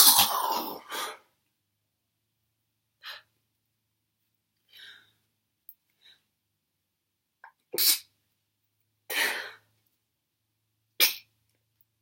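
A woman's sneezing fit: a loud sneeze right at the start, a couple of faint short sounds, then three sharp sneezes about one and a half seconds apart in the second half.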